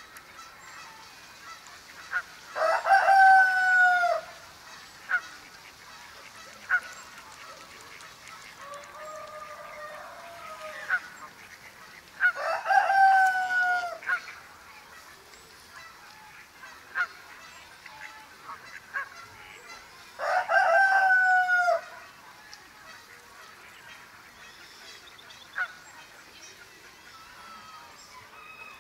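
Farm fowl calling: three long drawn-out calls, each about a second and a half and ending in a falling pitch, roughly nine seconds apart, with fainter short calls between them.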